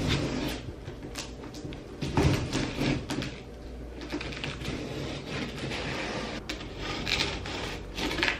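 Scissors cutting and scraping along the packing tape on a cardboard box, with tape and cardboard rustling and scratching. A knock about two seconds in is the loudest sound.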